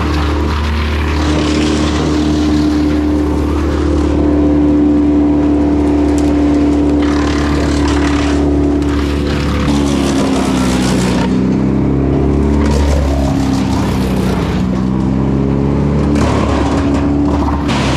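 A vehicle's engine running on the road: a steady drone that, through the second half, rises and falls in pitch several times as the speed changes.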